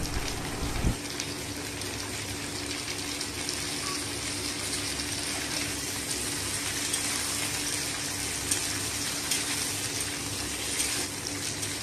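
Cubed potato, carrot and green capsicum sizzling steadily in hot mustard oil in a kadai, with a spatula stirring and scraping the pan now and then in the second half.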